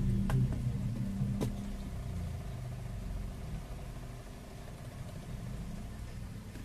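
Two sharp clicks in the first second and a half as smartphones are handled and knocked together on a repair mat, over a steady low hum.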